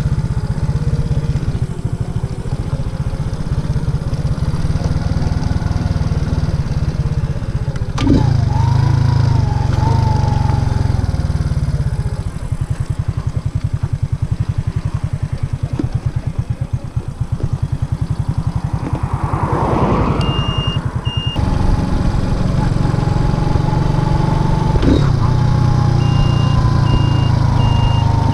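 Racer Alpha RC50 moped's 50 cc single-cylinder engine running under way, heard from the rider's seat, with the engine note changing about eight seconds in. A run of short, evenly spaced high beeps comes twice, briefly around two-thirds of the way in and again near the end.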